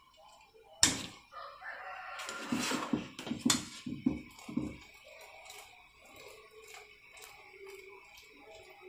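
Metal slotted ladle clacking and scraping against a steel pot as par-boiled basmati rice is scooped out. There is a sharp clack about a second in, several knocks over the next few seconds, and then lighter scraping.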